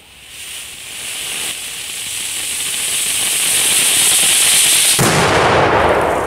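Ground firework fountain spraying sparks with a high hiss that builds steadily louder; about five seconds in it suddenly turns into a deeper, rougher rush as sparks are thrown into the air, then fades.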